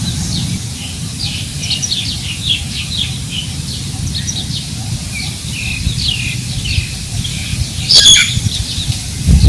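Several birds chirping and calling in short, quick notes over wind rumbling on the microphone. One loud, sudden call stands out about eight seconds in.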